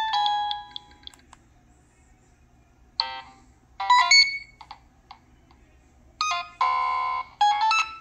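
Preloaded ringtones on a Nokia 6015i playing through the phone's speaker. A synthesized melody dies away about a second in. After a short pause the next tone starts about three seconds in, with short bursts of bright electronic notes and a buzzy sustained chord near the end.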